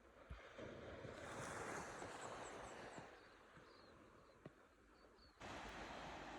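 Faint outdoor ambience: a steady rushing noise with a few short, high chirps. The sound changes abruptly about five seconds in.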